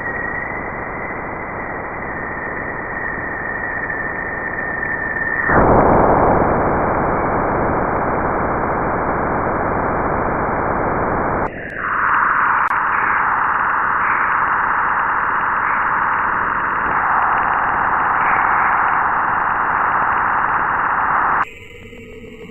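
Sonified spacecraft radio recordings of the kind sold as the sounds of the planets. The first is static-like hiss with a steady high whistle, which gives way about five seconds in to broader, louder hiss. About halfway through it cuts abruptly to a different, narrower hissing sound, and near the end it cuts again to a quieter sound with shifting tones.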